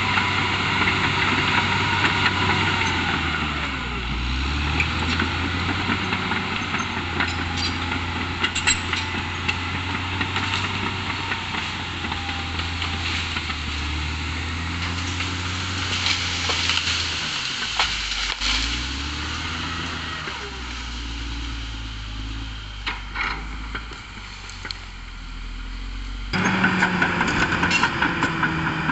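Caterpillar D6R XL bulldozer's diesel engine running, its pitch sagging and recovering a couple of times as it works, with scattered metallic clanks. About 26 seconds in the sound abruptly gets louder.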